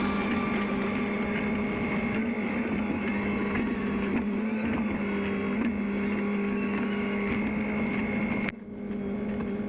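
Mini excavator's diesel engine running steadily at an even speed. It drops out briefly about eight and a half seconds in, then carries on.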